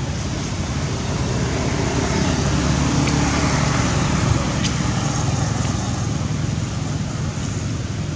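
A road vehicle passing, its engine and tyre noise swelling to a peak about halfway through and then fading, over a steady rushing background.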